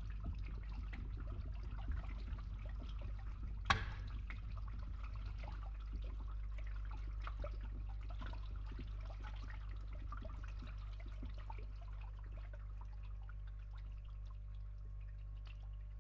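Water trickling and gurgling as it drains through a pipe, over a steady low hum from a pump. A single sharp click stands out about four seconds in, and the trickling thins out near the end while the hum goes on.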